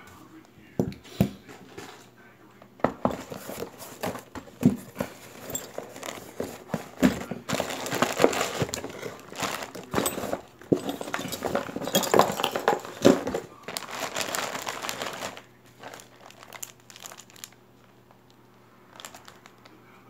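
Clear plastic bags crinkling and rustling as hands rummage through a cardboard box of bagged items and handle a zip-lock bag. A few sharp clicks about a second in, and the crinkling is densest in the middle and thins out near the end.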